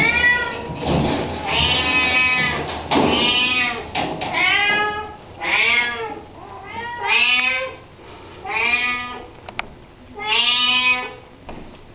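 Cat meowing over and over, about eight drawn-out calls, each under a second, rising then falling in pitch, coming every second or so.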